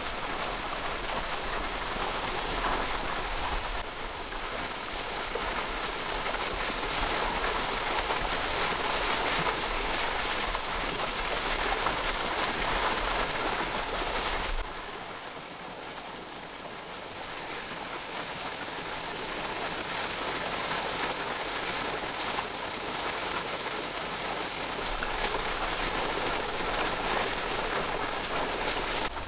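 Steady rain falling as an even hiss. It drops suddenly about halfway through, then slowly builds back up.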